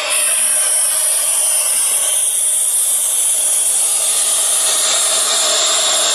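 CNC router spindle running at high speed with a steady high-pitched whine, its small bit carving a relief into an MDF board with a continuous hissing, rasping cut.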